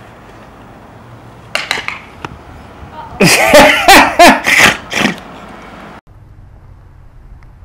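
A person's voice in loud, separate bursts with bending pitch, not words: a short one about one and a half seconds in, then a run of four or five between about three and five seconds in. It cuts off abruptly about six seconds in, leaving faint low background noise.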